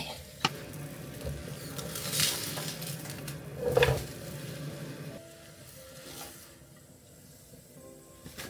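Food sizzling in a pan as it is stirred, with clinks and knocks of a utensil against the pan, busiest about two to four seconds in.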